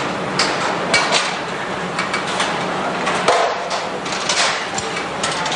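Plier-factory floor noise: irregular metal clinks and knocks, one to three a second, over a steady machinery hum.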